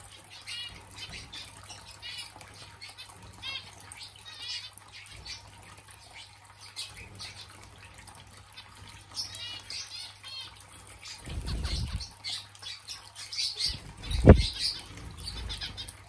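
Zebra finches giving many short chirping calls while feeding on seed. A low rumbling thump comes about eleven seconds in, and a sharper, louder thump about fourteen seconds in.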